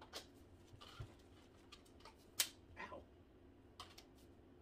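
A few faint, sharp clicks and taps of plastic hula hoop tube sections being handled and knocked together, the loudest about two and a half seconds in.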